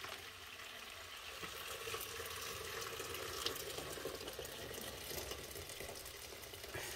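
Water running and splashing steadily, building up over the first second or two and cutting off abruptly at the end.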